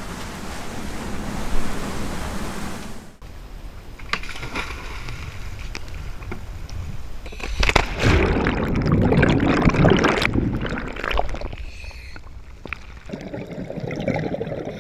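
Water noise of waves and sloshing, broken by abrupt changes about three seconds in and again near the end, with a louder stretch of splashing in the middle.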